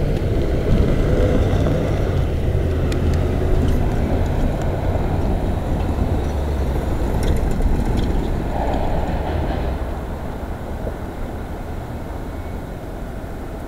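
Freight train rumbling as it moves away, a steady low rumble that eases off about ten seconds in, with a few scattered clicks.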